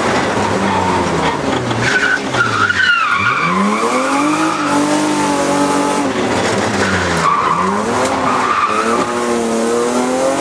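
BMW E36 rally car engine heard from inside the cabin, revving hard, with the revs dropping and climbing again twice as the car brakes and accelerates through corners. A tyre squeal is heard about two to three seconds in.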